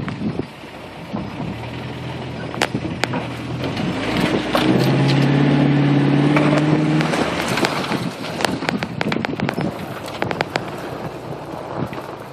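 1987 Toyota 4Runner's engine labouring as the truck crawls over a rough off-road trail. It swells to a loud, steady pull for a few seconds in the middle as the truck climbs a dirt bank. Scattered sharp knocks and clicks run through it.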